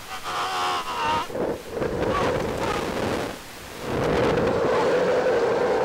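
Rushing wind buffeting the onboard camera microphone of a slingshot reverse-bungee ride as the capsule swings through the air, with a rider's brief wavering high yell in the first second. The rush drops briefly, then comes back louder and steadier from about four seconds in.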